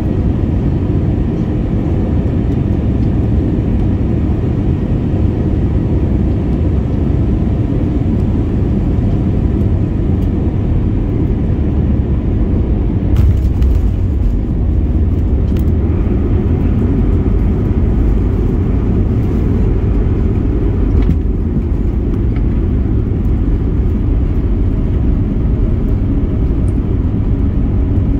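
Steady low rumble of an Airbus A321's engines and airflow heard inside the cabin as it lands, with a brief jolt a little under halfway through as the wheels touch down, then the rumble of the rollout along the runway.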